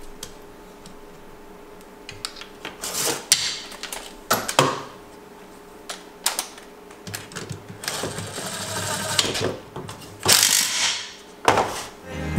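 Scattered clicks, taps and short rattles of small metal parts and a hand tool working on a two-stroke motorcycle engine's aluminium crankcase half, as the gear-shift parts are fitted and bolted down. About eight seconds in comes a longer run of rapid clicking.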